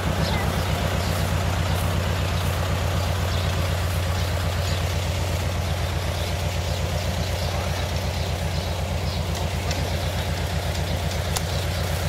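Engine of the vehicle towing a brush-laden cart, idling steadily with an even, fast low throb.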